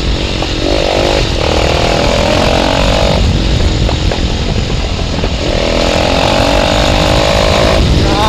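Bajaj Pulsar 220 single-cylinder engine through an aftermarket exhaust, revving as the motorcycle accelerates in two pulls. The pitch climbs in each pull, with a short ease-off between them, over a steady low rumble of wind on the microphone.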